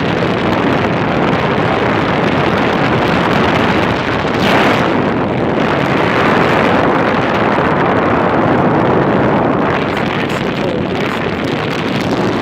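LG window air conditioner running, its fan blowing a steady rush of air.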